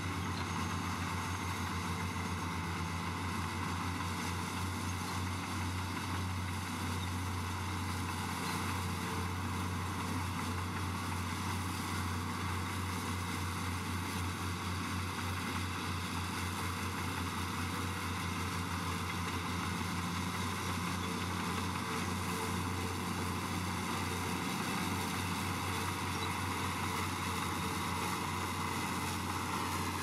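Komatsu bulldozer's diesel engine running steadily, an even drone with no change in speed.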